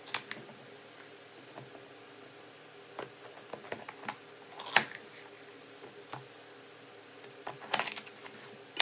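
Chef's knife slicing through poblano peppers and tapping the wooden cutting board: irregular crisp clicks and knocks, the loudest a little before the middle and another right at the end.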